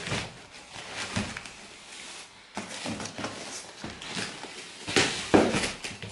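Cardboard shipping box being opened by hand: flaps scraping and bending and crumpled brown packing paper rustling, with a couple of sharper scrapes and knocks about five seconds in.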